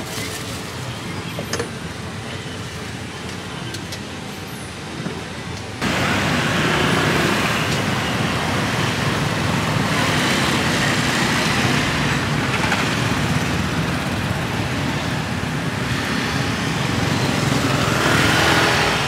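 Road traffic of motor scooters, motorbikes and cars passing, a steady engine and tyre noise that comes in suddenly about six seconds in, with one vehicle passing close near the end. Before it there is quieter background noise with a couple of light clicks.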